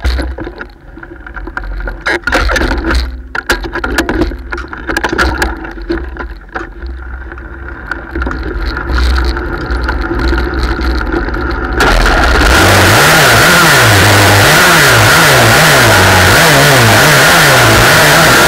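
Knocks and clatter over a low rumble, then about twelve seconds in a racing engine bursts into loud running, its pitch rising and falling again and again as it is revved on the dirt track.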